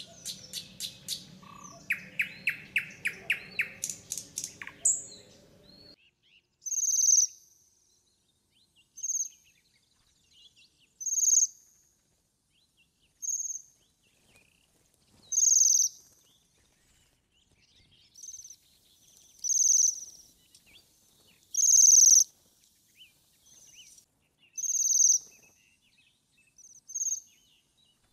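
Songbird singing. It starts with a quick run of clipped notes, about four a second, over a low rumble that stops about six seconds in. Then come short high-pitched phrases every two seconds or so, with dead silence between them.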